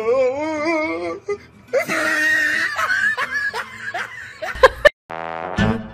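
A person laughing hard in wavering peals. Near the end the sound drops out briefly and music begins.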